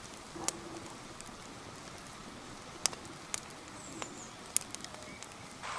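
Wood campfire crackling: a handful of sharp, irregular pops over a steady faint hiss.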